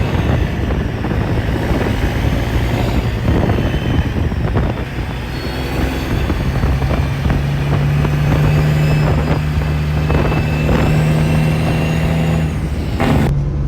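Semi truck running down the road, its engine holding a steady low hum that settles about six seconds in, with knocks and rattles of the ride over it; the sound changes abruptly near the end.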